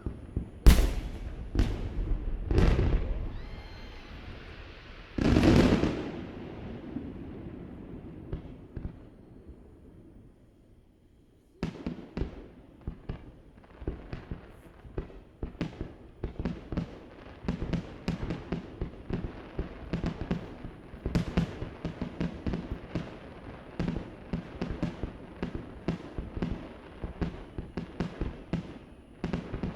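Fireworks display: several heavy shell bursts with long rumbling tails in the first six seconds, the biggest about five seconds in, dying away to near quiet around ten seconds. From about twelve seconds, a dense run of many quick small reports crackles without a break.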